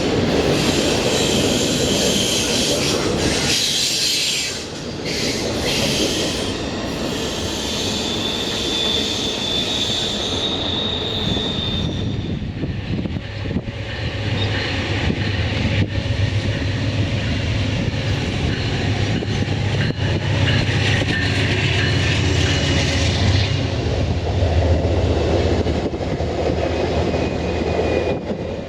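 Norfolk Southern freight train rolling past, steel wheels running on the rails. A high wheel squeal holds for about three seconds, starting about eight seconds in. About halfway through, a steady low hum joins in.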